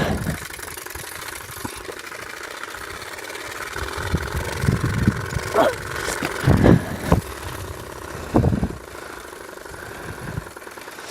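Turbospoke on a bicycle, its plastic card buzzing against the spokes as the wheel turns, giving a steady motorbike-like buzz. Several louder low rumbles or knocks come in the middle.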